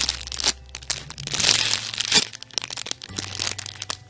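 Clear plastic packaging bag crinkling and crackling as a squishy toy cake sealed inside it is squeezed and turned in the hands. It comes in uneven bursts, loudest just after the start and again around the middle.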